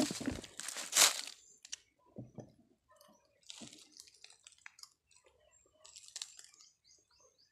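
Plastic bag and woven plastic sack crinkling and rustling as a load of star apples is tipped out and handled, loudest in the first second or so, then fainter scattered rustles and knocks of fruit being moved about.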